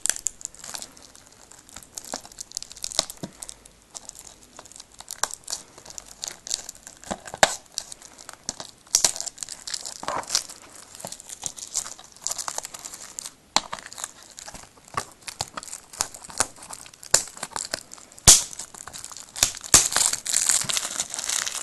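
Plastic shrink-wrap on a DVD case being picked at, torn and peeled off by hand: irregular crinkling and crackling, growing busier and louder near the end.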